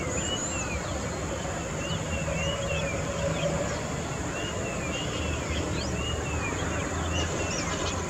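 Small birds chirping repeatedly in short, arching calls, over a steady low background hum.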